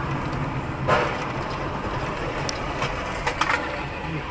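Steady engine and road noise inside a moving car, recorded by its dashcam. A sharp knock comes about a second in and a few light clicks follow near the end.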